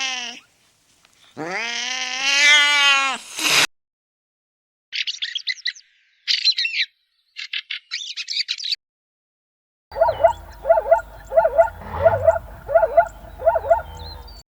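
A sequence of different animal calls: a cat meowing twice in drawn-out pitched calls, then a few seconds of quick high bird chirps, then a run of about seven short, evenly repeated calls from another animal, roughly one every two-thirds of a second.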